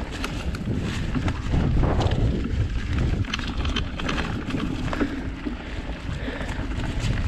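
Mountain bike riding over rocky singletrack: wind buffeting the microphone, heaviest about two seconds in, over tyre noise and scattered clicks and rattles from the bike.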